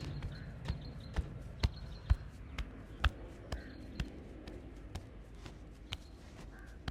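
Hands slapping and striking a person's body in a fast, aggressive massage: sharp slaps coming irregularly, about two a second.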